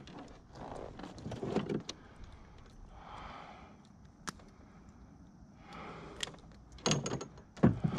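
Irregular knocks, rustles and rattles of a pickerel and fishing gear being handled in a plastic kayak, with a sharp click about four seconds in and the loudest knocks near the end.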